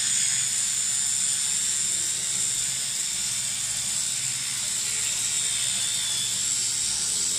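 Oral-B electric toothbrush running steadily during brushing, its rotating head making a constant high-pitched buzz.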